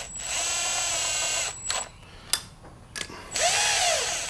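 Cordless impact wrench running in the end-plate bolts of a rotary vane aerator: two whining runs with a short pause and a couple of clicks between them. The bolts are being snugged in a crossing order, like lug nuts on a tire.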